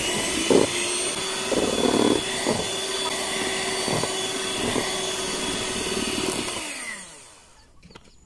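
Electric hand mixer running steadily, its beaters whipping a creamy mixture in a stainless steel bowl, with a few short clatters in the first seconds. Near the end the motor is switched off and winds down in pitch.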